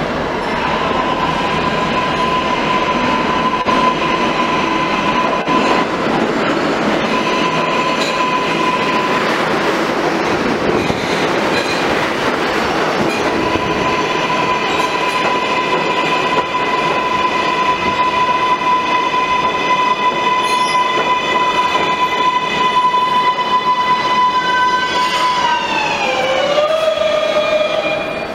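R142A subway train pulling into an underground station and braking to a stop. A steady high whine runs over the rumble of the wheels, and near the end its tones slide down in pitch as the train halts.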